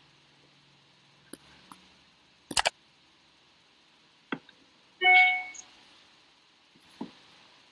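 A few soft clicks and a sharp double knock, then about five seconds in a short electronic chime of several pitches that fades within half a second: a computer notification sound. Another click comes near the end.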